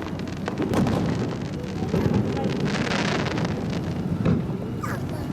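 Aerial fireworks bursting: repeated booms over a continuous rumbling echo, with a stretch of crackling about three seconds in.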